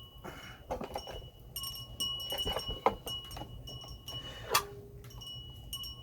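Hand tools clinking and knocking against the metal parts of a generator being dismantled. A sharp metallic clink about four and a half seconds in rings on briefly.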